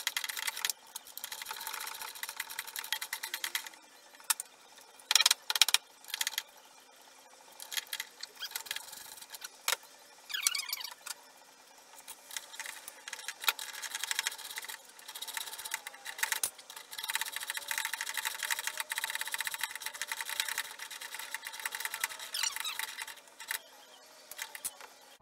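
Hand-tool work on an outboard motor's mounting: irregular bursts of metallic clicking and rattling, with a brief falling squeak about ten seconds in.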